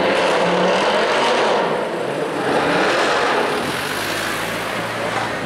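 Mercedes-AMG C63 V8 engines revving hard, swelling loud twice.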